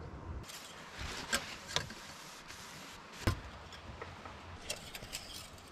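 Clicks and knocks of a plastic cap and fluid bottle being handled at a car's brake fluid reservoir, over a steady hiss. The sharpest knock comes about three seconds in, with a quick run of small clicks near the end.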